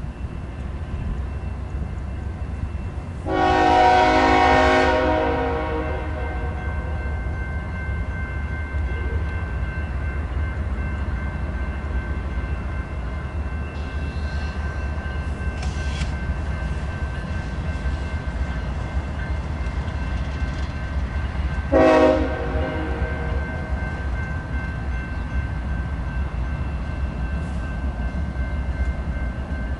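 BNSF diesel locomotive's air horn sounding a long blast about three seconds in and a short blast about twenty-two seconds in, over a steady low rumble.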